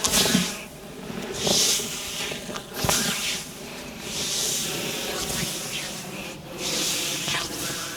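Hands sliding over skin in repeated massage strokes, a swishing rub that swells and fades about once every second and a half. One short sharp click comes about three seconds in.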